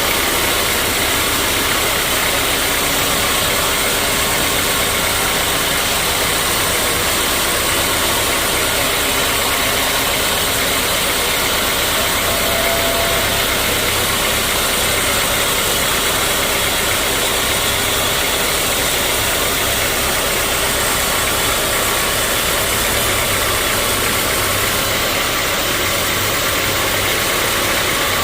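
Sawmill machinery running steadily: a loud, even engine-driven drone with dense noise over it that does not change for the whole stretch.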